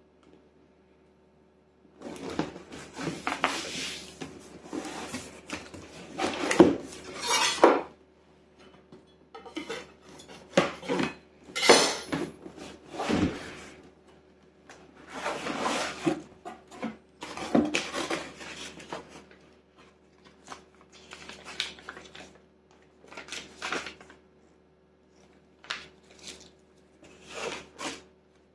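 Parts of a Polaris RZR 800 engine rebuild kit being unpacked and handled. Irregular clinks and knocks of metal parts and the rustling of their packaging start about two seconds in.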